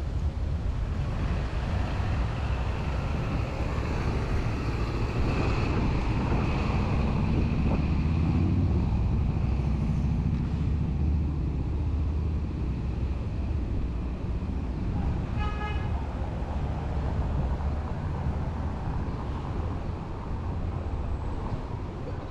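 City street traffic passing steadily, with one vehicle swelling past in the first half. A short car horn toot sounds once, about fifteen seconds in.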